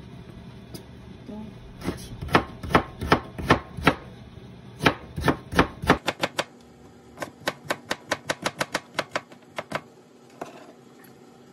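Kitchen knife slicing a carrot into thin strips on a plastic cutting board: a run of sharp taps, about two to three a second, starting about two seconds in. From about six seconds on the taps come about twice as fast, the footage being sped up to double speed, with a short pause near the end.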